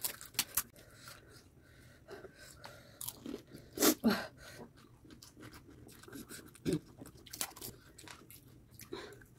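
Close-up crunching and chewing of crisp, hollow pani puri shells filled with spiced water, in scattered crackles. The loudest crunches come near 4 s and near 7 s.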